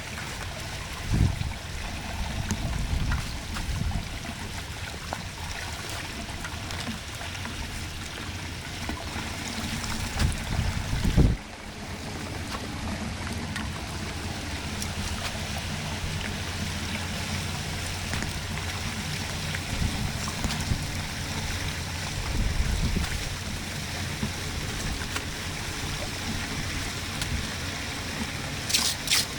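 Floodwater draining in a steady rush, with a few low thumps along the way. Rapid clicking starts just before the end.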